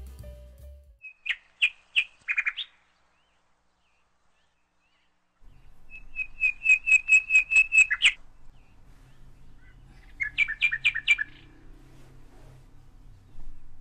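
A bird calling in three bursts of quick, repeated high chirps: a few notes, then a rapid run of about ten, then a short cluster, with pauses between them.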